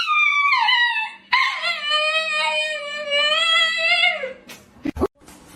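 Dog howling: a long howl sliding down in pitch, then a second long, fairly steady howl that dips at its end. A few brief knocks follow near the end.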